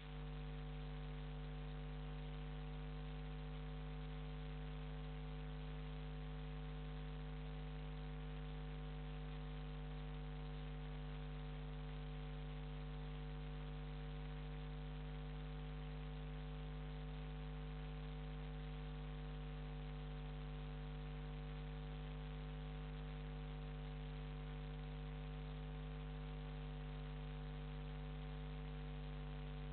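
Steady electrical mains hum: a low buzz with a ladder of fixed tones above it, over a constant hiss. It does not change as the narrowboat passes.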